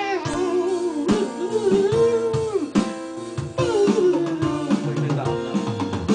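Instrumental break of a gospel song: an electric lead guitar plays a melody with bent, sliding notes over a drum kit, in a reggae groove.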